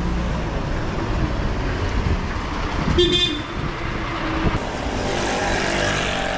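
Street traffic: a motor vehicle's engine rumbling, and one short car horn toot about three seconds in.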